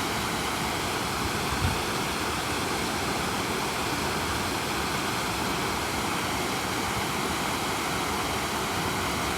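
Waterfall: a steady, dense rush of falling water. A brief low thump about one and a half seconds in.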